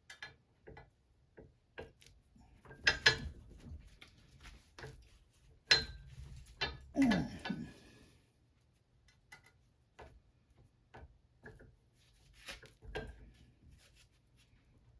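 Small metal clicks, clinks and a few louder knocks from handling the set screws, Allen wrench and steel sleeve of an Olympic barbell during reassembly.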